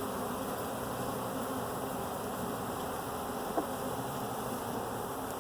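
Swarm of honeybees buzzing steadily around the microphone, agitated by being shaken into a hive box. One brief click about two-thirds of the way through.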